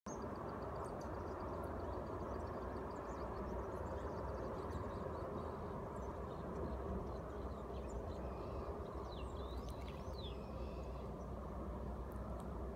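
Outdoor ambience of a steady low rumble, with birds chirping faintly above it: a quick run of ticking notes in the first few seconds and a few rising and falling calls about ten seconds in.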